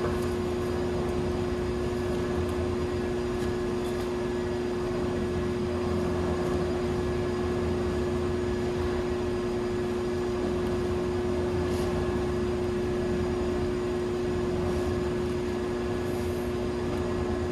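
Air conditioner running: a steady hum with a constant low tone over a low rumble, unchanging throughout.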